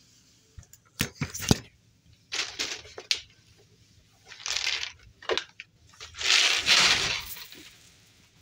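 Several bursts of close rustling and crunching, with a quick cluster of sharp clicks about a second in; the longest burst comes about six seconds in.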